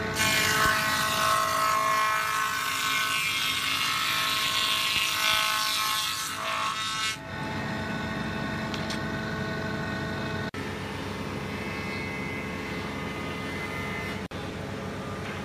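A wood shaper cutting a raised-panel profile into a board, a loud, high-pitched cutting noise for about seven seconds. Then the machine runs on more quietly and steadily with a humming tone.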